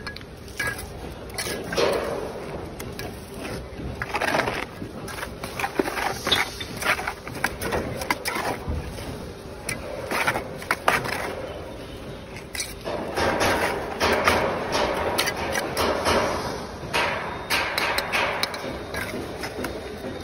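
Bricklayer's steel trowel scraping and spreading cement mortar on clay bricks and scooping it from a mortar tub, with many short taps and knocks as the bricks are set in place.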